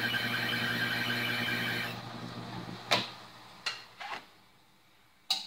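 Drill press running with its bit rubbing on a stainless steel knife blade without cutting in, the sign of a dull bit or steel too hard for it. The running stops about two seconds in and fades out, followed by a few sharp knocks.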